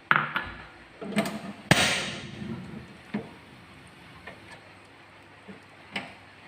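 Kitchen cookware knocking and clicking: several separate knocks, the sharpest about 1.7 s in with a brief hiss trailing after it, then a few fainter clicks.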